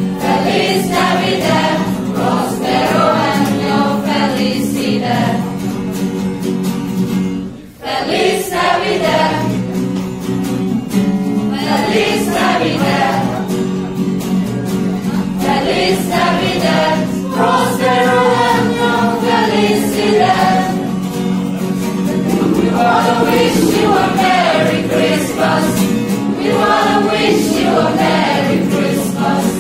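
A small group singing a Christmas song together to guitar accompaniment. The singing breaks off briefly about eight seconds in.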